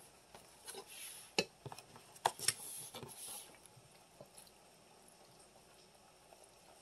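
Metal ladle scraping and clinking against the inside of an enamel pot while scooping thick rice and chicken. Several sharp knocks and scrapes in the first three and a half seconds, the loudest a little over two seconds in.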